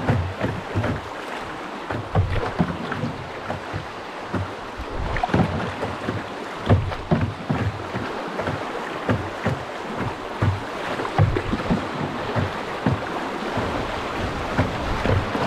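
Water splashing and lapping around a small boat such as a canoe on a river, with irregular low thumps of wind buffeting the microphone.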